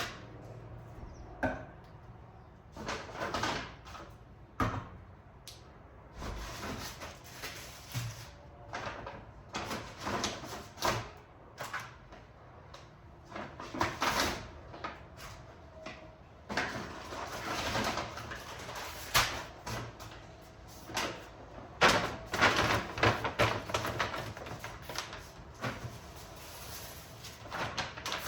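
Groceries being handled and unpacked: irregular rustling of plastic bags and packets, with knocks of items being set down.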